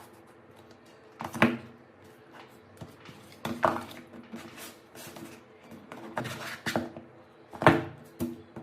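A handful of sharp knocks and clacks of hard objects, spread out with quiet gaps, each followed by a brief low ring.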